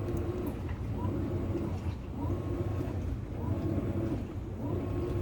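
Maytag top-load washer running a load: its drive motor whirs in repeated strokes, each rising, holding and falling in pitch about once a second, over a steady low rumble. The machine runs quietly.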